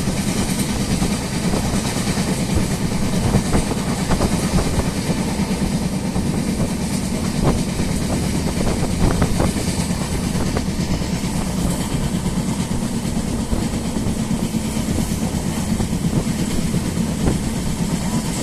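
Moving passenger train running steadily along the track: a continuous rumble of wheels on rail, with a few sharp clacks about halfway through.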